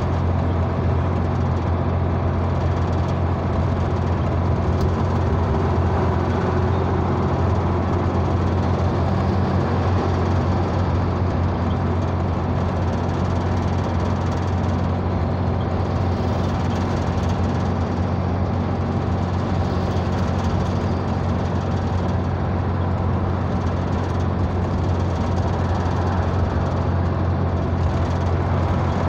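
Road noise of a car cruising steadily on a highway, heard from inside the car: a steady low drone from the engine and drivetrain over an even hiss of tyres and passing air.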